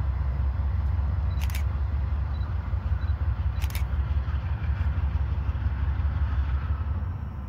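Low, steady rumble of the Norfolk Southern geometry train backing slowly down the siding in the distance, with two sharp clicks about a second and a half and nearly four seconds in.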